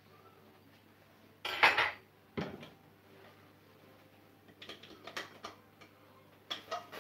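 Frying pan and cooking utensils clattering on an electric stove: a loud clatter about a second and a half in, a sharp knock shortly after, then a run of lighter clinks and taps near the end.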